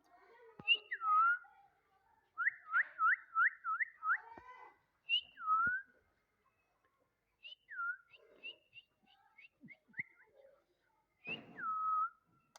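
A parrot whistling: repeated short notes that swoop down and level off, including a quick run of about five about two and a half seconds in and a longer held note near the end.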